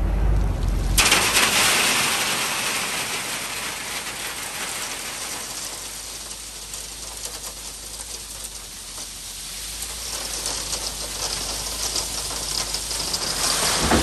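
Loose dirt and gravel pouring and sliding, a crackling rush that starts abruptly about a second in, fades through the middle and swells again near the end. A low engine rumble from the truck is heard briefly at the start.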